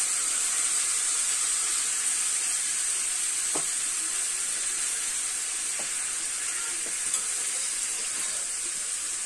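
Spiced rui fish pieces, potato and brinjal sizzling steadily in hot oil in a pan, with a few faint clicks. They are being braised in spices (kosha) with a little water just added.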